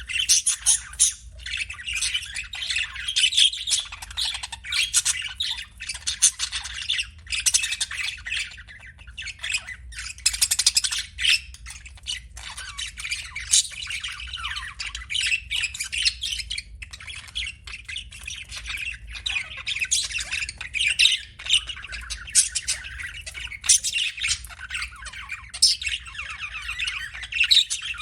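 Budgerigars chattering without pause: a fast, warbling stream of high chirps mixed with harsh, squawky notes.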